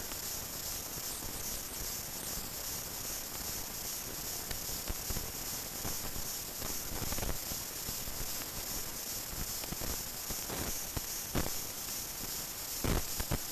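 Steady hiss with a thin high whine and scattered clicks and pops, the loudest near the end: surface noise of a silent film transfer, with no bell heard.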